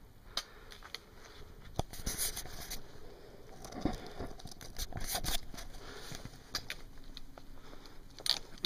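A hiker's footsteps on a trail: irregular crunches, scuffs and crackles, busiest about two, four and five seconds in.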